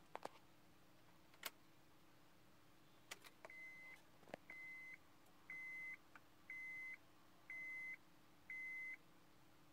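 A car's dashboard warning chime beeping six times at one steady pitch, about once a second, each beep about half a second long. It is preceded by a few sharp clicks.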